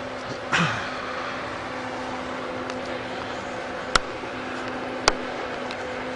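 Steady mechanical drone with a few held tones throughout. About half a second in there is a brief low sound falling in pitch, and later come two sharp clicks about a second apart as a compound bow is picked up and handled in a tree stand.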